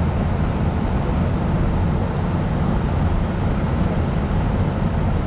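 Steady rushing roar of a fast-flowing river running over shallow rapids, an even, unbroken wash of water.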